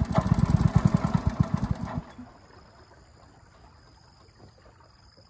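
Small single-cylinder engine of a wooden long-tail river boat running with a rapid, even low putter, then cutting off abruptly about two seconds in.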